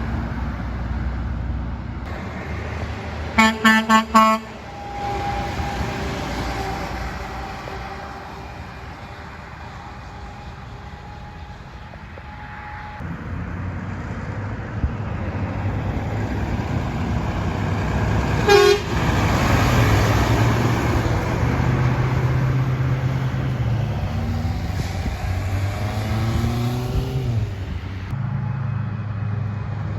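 A vehicle horn sounds about four quick blasts a few seconds in, over steady traffic noise. Later a heavy truck's engine comes through loudly, its pitch rising in steps near the end.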